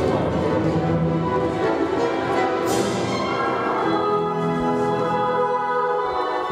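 Recorded orchestral classical music with held, sustained chords.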